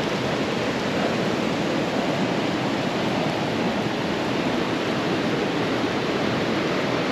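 Steady rush of a mountain river, the Abasha, pouring over rocks and small cascades in a limestone canyon.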